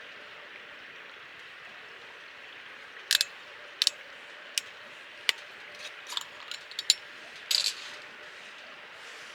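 A series of about ten sharp clicks and clinks, like small hard objects being handled, between about three and eight seconds in, over a steady rushing hiss.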